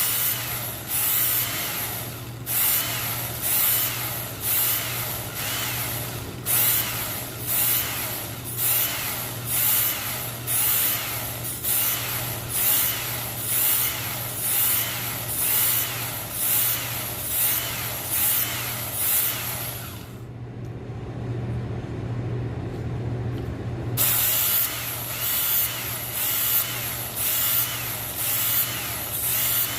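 Bubba Blade knife being ground on a powered sharpener: a steady motor hum under repeated rasping strokes of the blade across the abrasive, about one and a half a second. The strokes stop for a few seconds about twenty seconds in while the motor keeps running, then resume. The grinding is reshaping the edge to take out its notches.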